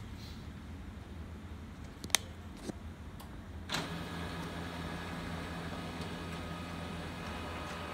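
HP LaserJet P3015 laser printer: a sharp click about two seconds in, then about four seconds in its motors and fan start up and run steadily with a low hum and a few steady tones, the printer running again after its fuser film has been replaced.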